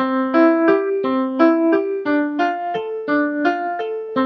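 Keyboard tune: a bright melody of short, evenly spaced notes, about three a second.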